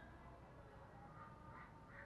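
Near silence, with a faint call repeating about three times a second from about halfway through.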